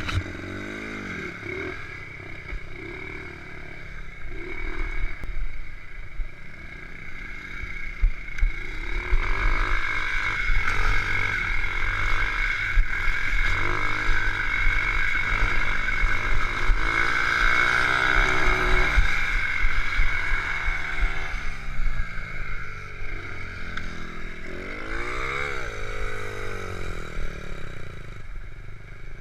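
Honda Monkey mini bike's small single-cylinder four-stroke engine, bored to 72cc, running while ridden. It revs up and down several times as it accelerates and eases off, with a long climb in pitch about a third of the way in and another rise and fall near the end.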